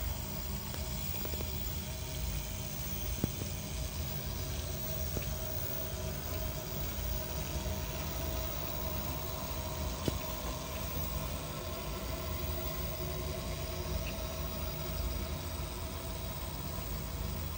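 HO-scale brass PFM three-truck Climax model locomotive running along the track pulling log cars: a steady hum from its motor and geared drive, with a few faint clicks.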